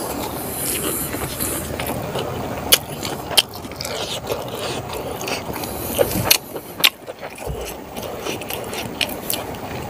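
Close-miked chewing of a mouthful of rice, with wet mouth noises and several sharp smacking clicks, while fingers scrape and gather rice on a banana leaf.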